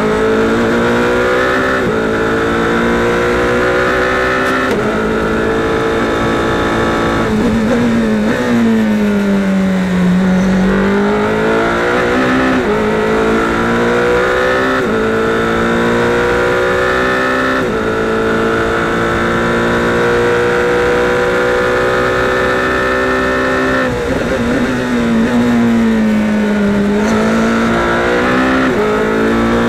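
Indy Pro 2000 race car's four-cylinder engine heard onboard at full throttle, its pitch climbing through each gear and dropping in a step at every upshift. Twice, about a third of the way in and again near the end, the revs fall through a run of downshifts under braking for a corner and then climb again as the throttle goes back on.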